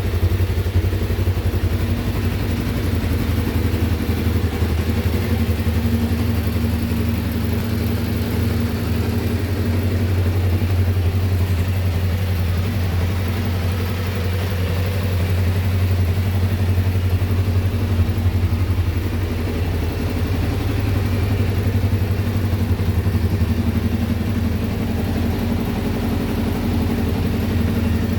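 Kawasaki KLE500's parallel-twin engine running steadily at idle through its stock exhaust, with an even, unchanging low note.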